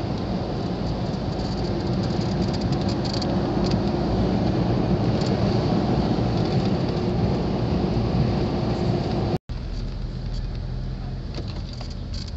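Steady engine and road noise heard inside a 4x4's cabin as it drives down a paved road. It swells slightly, cuts out abruptly for a moment about nine seconds in, then carries on quieter.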